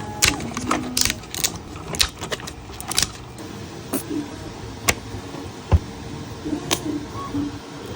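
Hard 3D-printed plastic being handled and worked: irregular sharp clicks and snaps with light scraping, one louder snap near the middle, and a few short whirring notes.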